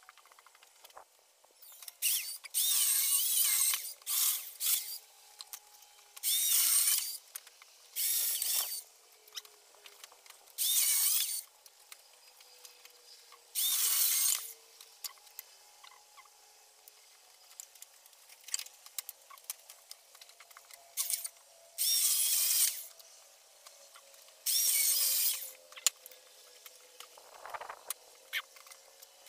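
A power saw cutting firewood in short bursts: about ten cuts, each a second or so long, with pauses between them.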